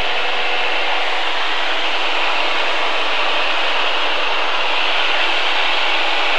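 Steady drone of a single-engine propeller airplane's engine, propeller and airflow, heard inside the cockpit in flight.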